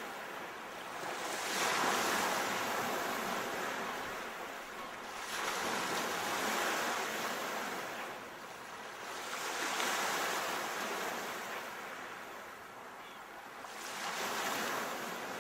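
Sea waves surging and ebbing, four swells about four seconds apart.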